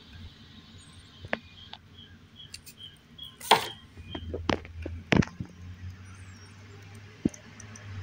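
Scattered clicks and knocks of a clear plastic container being handled, the loudest about halfway through, with a low steady hum from then on.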